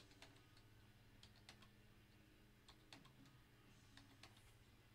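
Faint, scattered keystrokes on a computer keyboard as countdown numbers are typed, over a low steady hum.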